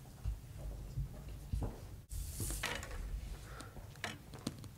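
Quiet room noise with a low rumble, a few faint knocks and a brief rustle; the sound drops out for a moment about two seconds in.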